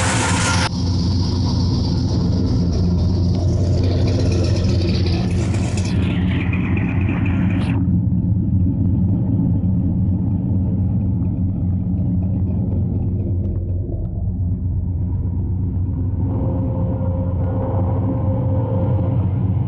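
Carbureted 440-based big-block V8 of a 1966 Dodge Coronet, bored out to about 446 cubic inches, running with a steady low rumble.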